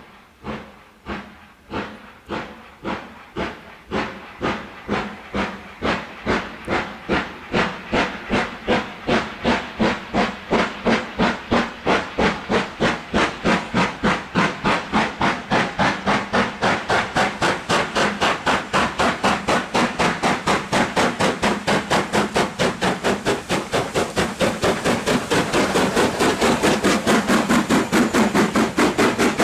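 Ex-LMS Black 5 two-cylinder 4-6-0 steam locomotive pulling away with a passenger train: its chimney exhaust beats start about one a second and quicken steadily to several a second, getting louder as it comes up and passes.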